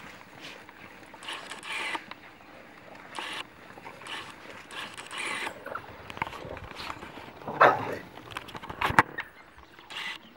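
Pack of African wild dogs mobbing a wildebeest at close range: a run of short, irregular animal calls and scuffling. Two louder sharp sounds come near the end, about a second apart.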